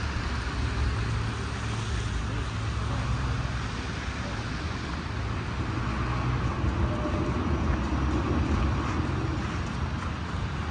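City street traffic: cars passing, with a steady low rumble and an even hiss of tyres and road noise.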